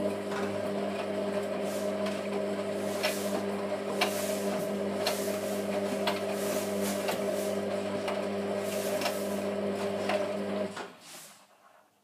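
1991 Hotpoint Electronic 1000 De Luxe 9536W washing machine tumbling its drum during a wash: a steady motor hum with scattered light knocks. It starts abruptly and cuts out about eleven seconds in.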